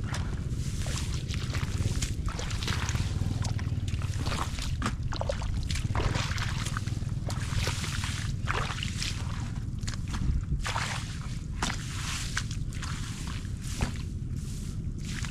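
Muddy water sloshing and squelching in irregular splashes as hands grope through mud and shallow water for catfish, over a steady low rumble.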